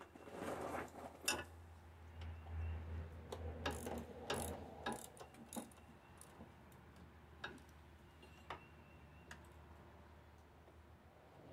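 Socket wrench ratcheting and tools clinking in short, irregular runs of clicks while tightening the loose bolts that hold a riding mower's engine to its frame. The clicks are densest in the first half and thin out to a few scattered ticks later.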